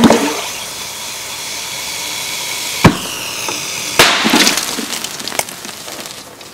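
Sodium metal (about 3.5 grams) fizzing on water with a steady hiss, then exploding about four seconds in with a loud bang, followed by crackling as burning sodium sprays out. A single sharp crack comes about a second before the blast.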